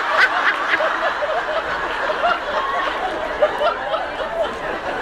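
Audience laughing and chattering: many overlapping giggles and voices at once.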